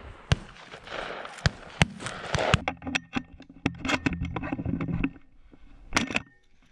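Shotguns firing during a dove shoot: several sharp, scattered cracks, some loud and some fainter, a few coming close together.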